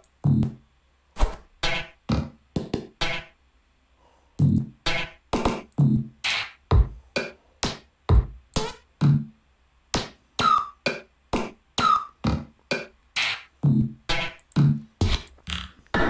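A rapid string of short electronic drum-machine and synth samples, fired one after another by a TouchDesigner AudioPlay CHOP driven by a random noise trigger. They come at about two or three hits a second, each starting sharply and dying away quickly, with a pause of about a second three seconds in.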